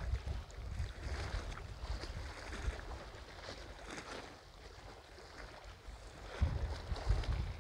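Small lake waves lapping and splashing against a sloped concrete embankment, with wind buffeting the microphone; the wind rumble grows heavier about six and a half seconds in.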